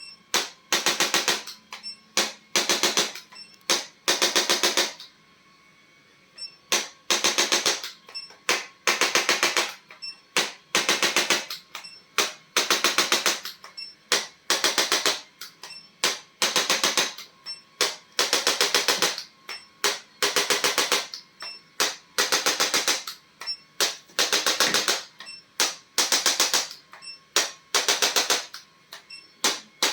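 A handheld electric percussive device rattling in short bursts of very rapid taps, roughly one burst a second, with one longer pause about a third of the way through.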